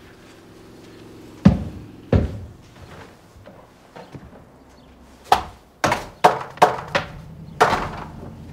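Two dull thumps about a second and a half in, then a run of six sharper knocks or bangs, about two a second, in the second half.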